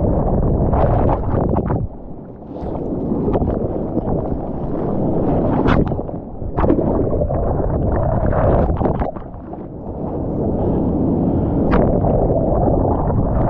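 Seawater rushing and splashing around a surfer's GoPro, with wind buffeting the microphone. The noise surges and eases every few seconds, with a few sharp splashes.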